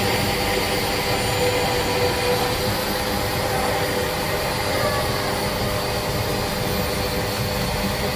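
Steady hubbub of a crowded street market: many distant voices blended into an even din, with no single voice standing out.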